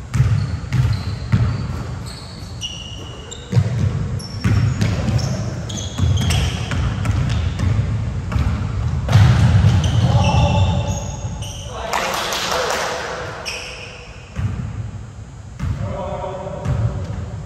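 Basketball dribbled and bouncing on a gym court during play, with many short, high sneaker squeaks and players calling out in the echoing hall.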